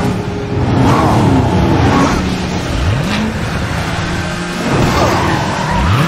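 Cartoon race-car engine sound effects: engines running hard as the cars speed along, revving up with a rising pitch about three seconds in and again near the end.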